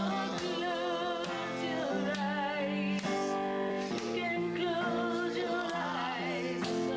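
Music with a singing voice holding long notes with vibrato over a steady instrumental backing.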